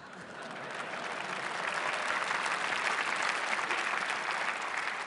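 Audience in a large hall applauding: the clapping swells over the first two seconds and tapers off near the end.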